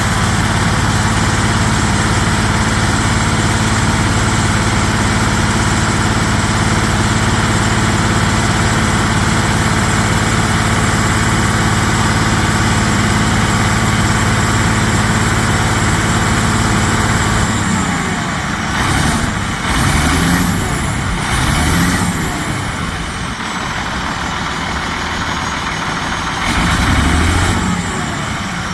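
Detroit Diesel Series 60 inline-six truck engine idling with a steady note and an exhaust leak, which the mechanic takes for a big, huge exhaust leak. About two-thirds of the way through, the steady engine note gives way to an uneven sound that swells and fades.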